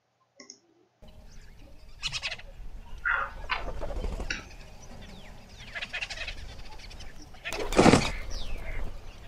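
Cartoon forest soundtrack with birds calling and chirping in short gliding calls, starting about a second in, and one louder burst near the end.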